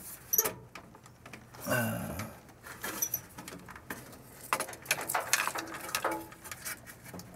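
Hands working a furnace control board onto its mounts among the wiring harness: scattered small clicks and knocks of plastic and sheet metal, with wires rustling.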